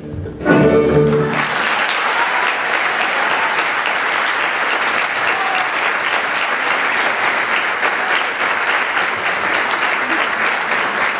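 Orchestral ballet music ends on a final chord about a second in, then the theatre audience applauds steadily.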